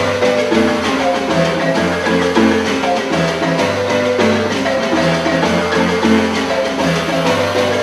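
Music with a fast, repeating pattern of short pitched notes over a steady bass line.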